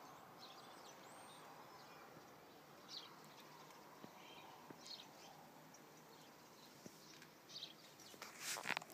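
Near silence: faint outdoor ambience with a few scattered, faint high bird chirps. Near the end come a few louder short rustles.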